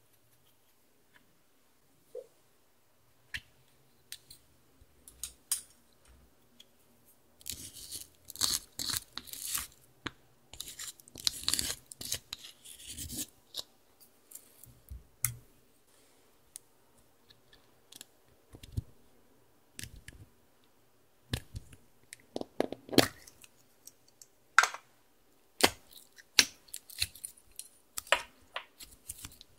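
Clear slime being handled and mixed with glitter and toppings in a glass dish: scattered sticky clicks and pops, with several seconds of dense crackling about a third of the way in and sharp clicks again towards the end.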